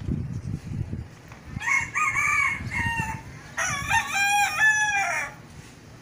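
A rooster crowing twice: a short call about one and a half seconds in, then a longer, wavering crow. A low rumble sounds in the first second.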